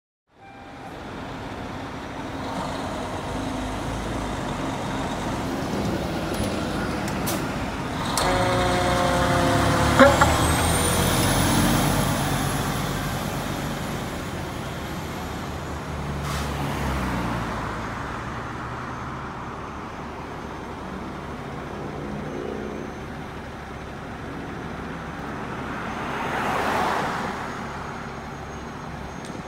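Fire trucks' diesel engines running and moving off, with a short pitched warning tone about eight seconds in and a swell of hiss near the end.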